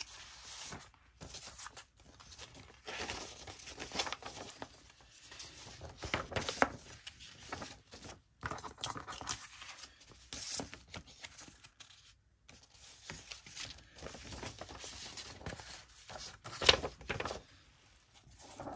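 Sheets of journal paper rustling and crinkling in irregular bursts as pages are handled and pulled out of a handmade junk journal, with one louder rustle near the end.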